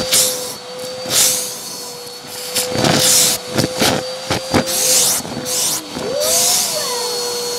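Hoover vacuum running with its crevice tool pushed through shag carpet: a steady motor whine under surges of rushing air, with sharp clicks and crackles as pieces of dry, crispy noodle are sucked up.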